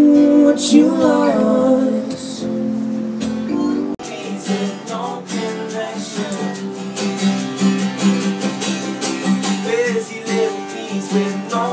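Live acoustic music. A woman holds a wavering sung note over keyboard and acoustic guitar chords, then about four seconds in it cuts abruptly to a different group's briskly strummed acoustic guitar.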